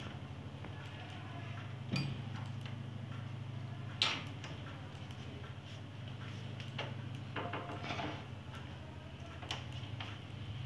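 Scattered clicks of a computer mouse being worked, the loudest about four seconds in, over a steady low hum.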